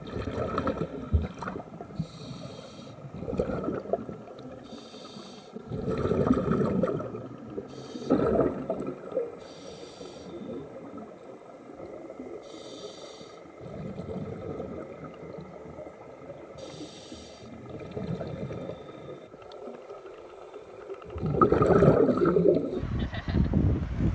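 Scuba diver breathing through a regulator underwater: hissing inhalations alternating with bubbling bursts of exhaled air, repeating every few seconds.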